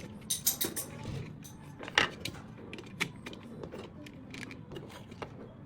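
An irregular series of small, sharp clicks and clinks, with a quick run of them in the first second and then scattered single ones.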